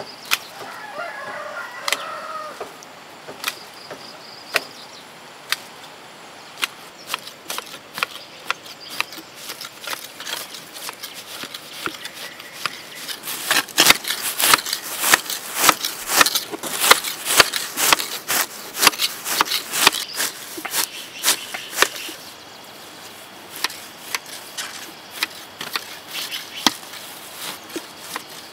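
Long-handled hedge shears snipping grass and leaves: sharp blade clicks, scattered at first, then a quick, dense run of snips in the middle that thins out again. A chicken calls briefly near the start.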